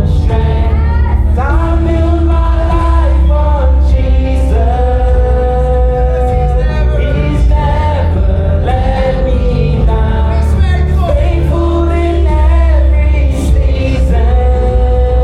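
Live church worship music: voices singing a worship song over a band with a heavy bass line.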